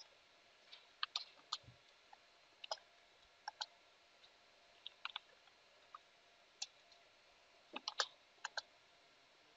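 Computer keyboard keys being typed slowly and unevenly: scattered single clicks and quick pairs, the loudest cluster near the end, over a faint steady hiss.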